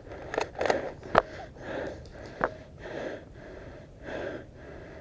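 A person breathing hard in puffs about a second apart, with two sharp clicks in the first half.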